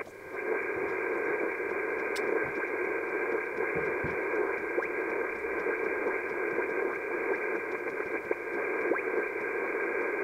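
Icom IC-7300 HF transceiver receiving single sideband while being tuned down the 10-metre band: a steady hiss of band noise with no signals, only the odd faint whistle sliding past, the sign of a band that seems dead.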